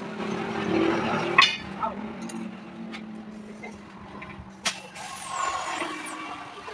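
A passing motor vehicle's engine hums and fades away. There is a sharp metallic clank about a second and a half in and a short click near five seconds, from tools on the tyre.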